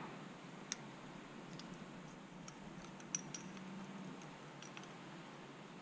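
Faint, scattered metallic clicks and ticks, a handful spread irregularly, as a small combination wrench and a nut are fiddled into place on a small metal pipe-mount fitting.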